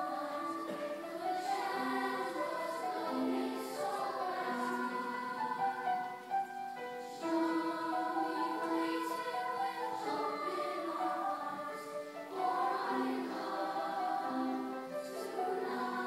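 Large middle school choir singing, many voices holding long notes together in phrases, with brief breaks between phrases about six and twelve seconds in.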